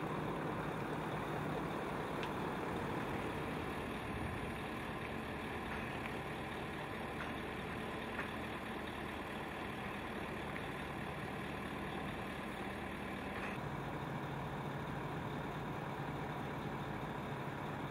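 Heavy vehicle diesel engine idling steadily, its hum dropping to a lower pitch about thirteen and a half seconds in.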